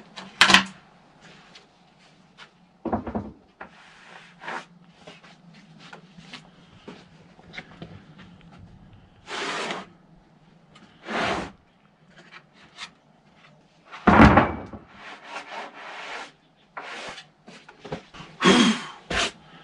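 Freshly sawn English walnut being handled on the sawmill: scattered wooden knocks and several short rubbing, scraping strokes, the loudest about two thirds of the way through, over a faint steady hum.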